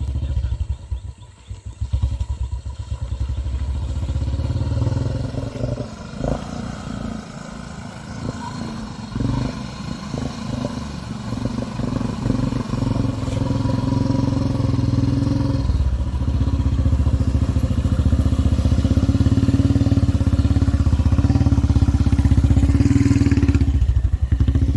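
Motorcycle engine running while riding along the road, a steady low rumble that grows louder in the last third.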